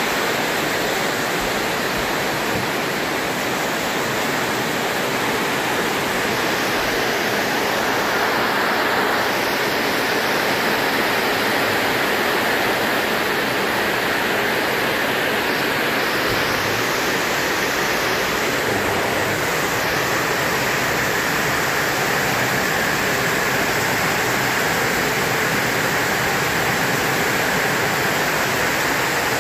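Rain falling steadily on the roof, heard from inside beneath it.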